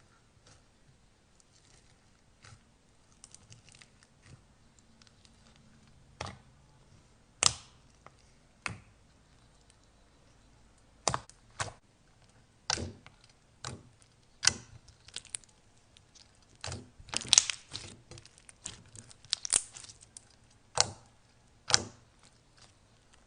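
Slime being squeezed and poked by hand, giving irregular sharp clicks and pops, with a denser run of crackling pops about three-quarters of the way through.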